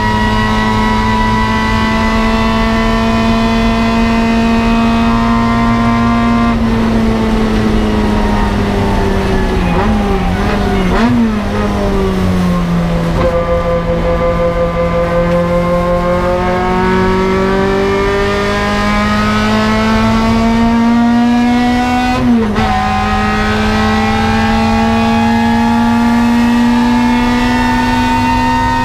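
Toyota KE70 Corolla's 4A-GE twin-cam four-cylinder race engine at full throttle, heard from the cockpit: it holds high revs, then its pitch falls as the car slows for a corner, with a couple of brief rev blips on the downshifts. It climbs again, dips for a quick upshift about three-quarters of the way through, and climbs once more.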